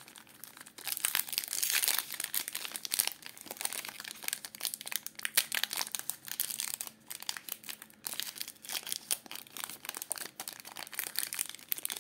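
Foil booster-pack wrapper crinkling and crackling in irregular bursts as it is handled and torn open, with brief lulls between handlings.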